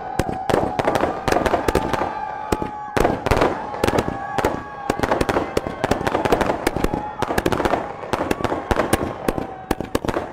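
Aerial fireworks going off in rapid succession: a dense run of bangs and crackling, with a long, slightly falling whistle running underneath.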